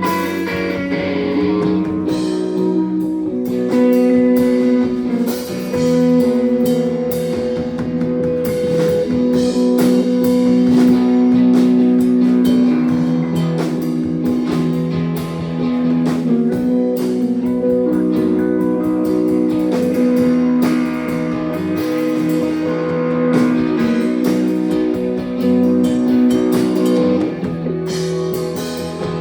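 Instrumental break in a blues-rock song: guitar playing held notes over a steady drum beat, with no singing.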